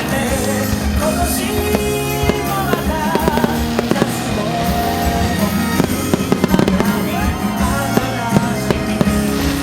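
Fireworks bursting and banging every second or so over a song with singing, played as the venue's background music.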